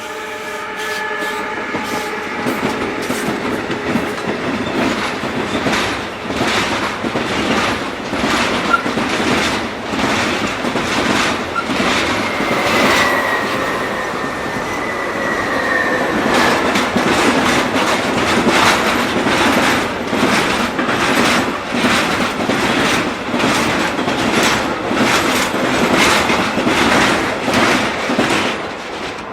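A train passing close by, its wheels clattering over rail joints in a steady run of clicks. A horn chord fades out in the first couple of seconds, and a thin high wheel squeal sounds briefly about halfway through.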